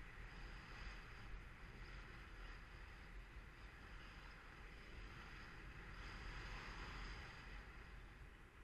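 Faint, steady rush of air past the microphone of a paraglider in gliding flight, with a low wind rumble.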